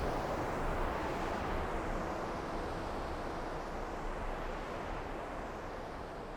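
Designed sound-art ambience: a steady, wind-like rushing noise with no clear pitch, slowly fading out.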